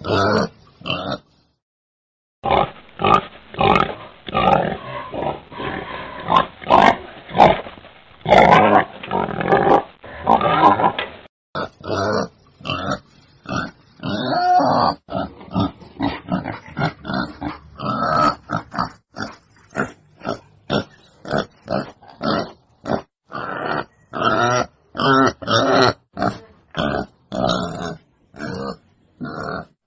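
Wild boar calls: many short calls in quick succession, with a break of about a second near the start.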